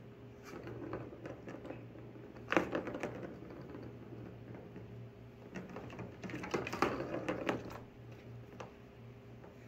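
A plastic ball rattling and clicking around the plastic track of a circular cat toy as a cat bats at it, in bursts about two and a half seconds in and again from about five and a half to eight seconds in. A steady low hum runs underneath.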